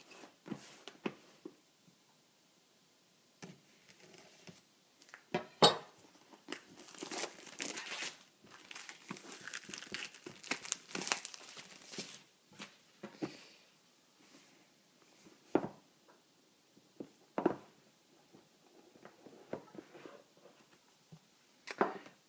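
Plastic shrink-wrap on a small cardboard box being slit, torn and peeled off, crinkling and crackling, with scattered sharp clicks and taps; the sharpest click comes about six seconds in and the crinkling is densest over the next several seconds.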